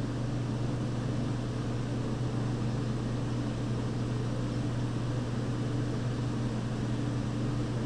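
Steady low hum with an even hiss over it, unchanging throughout, from shop background machinery such as a running fan or heater.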